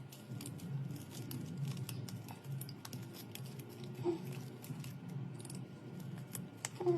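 Many small irregular clicks and taps with light rustling, as hard plastic and glass objects are handled. There is a sharper knock about four seconds in and a louder one near the end.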